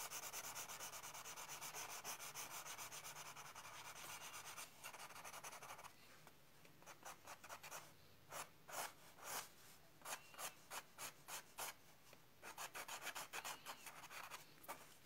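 Colored pencil scratching faintly on tan board. The first six seconds are quick back-and-forth strokes laying in fine hairs. After that come separate, slower strokes, about two a second.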